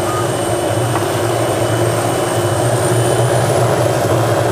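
Helicopter running nearby: a steady engine and rotor sound with a thin high turbine whine that climbs slightly about three seconds in.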